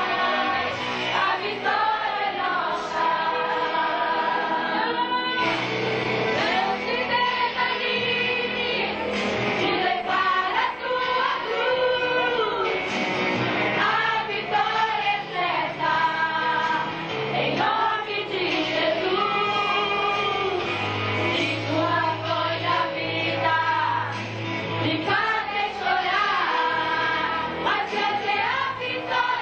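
Women's church choir singing a hymn together, with long held notes over a low sustained accompaniment.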